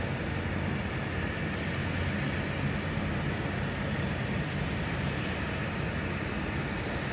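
A steady, unbroken low engine drone with a faint high hum over it.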